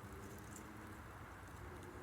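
Campfire burning quietly, with faint scattered crackles and small snaps over a steady low background hum.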